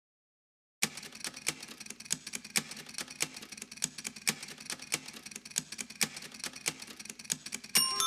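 Rapid, uneven clicking, like typing or ticking, starting about a second in over a faint steady low hum. Just before the end, glockenspiel-like mallet-percussion music comes in.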